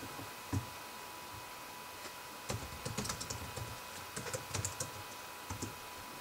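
Typing on a computer keyboard: short runs of key clicks, one cluster about two and a half seconds in and another around four and a half seconds.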